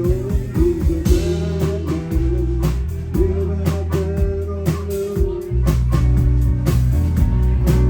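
Live band playing a blues-rock number: drums, bass guitar and guitars, with no words sung.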